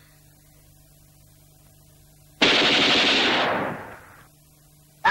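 A burst of automatic gunfire: a sudden loud rapid rattle about two and a half seconds in, fading out over about a second and a half.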